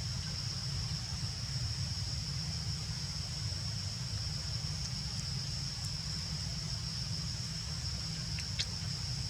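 Steady outdoor background noise: a low rumble under a constant high-pitched hiss, with one short click near the end.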